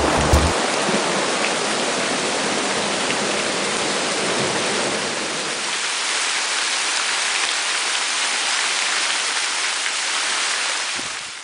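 Heavy rain falling steadily, an even hiss with no break. The last of a low thunder rumble dies away in the first half second, and the rain fades out near the end.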